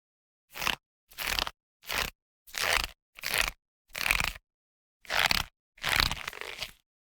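Rubbery rope being stretched in short pulls: eight separate creaking stretches in quick succession, each lasting well under a second, the last one a little longer.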